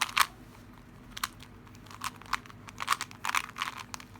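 Plastic crinkling and rustling in short, irregular bursts, as the Rubik's cube's plastic packaging is handled.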